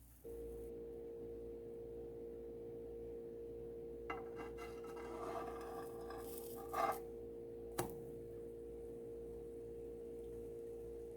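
A steady ringing tone begins just after the start and holds. Over it, kitchen utensils clink and scrape for a few seconds in the middle, and there is one sharp click about two-thirds of the way in.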